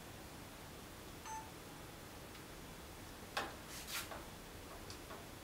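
A single short electronic beep about a second in, from the small action camera being switched on, followed by a few sharp clicks and rustles of the camera being handled near the end.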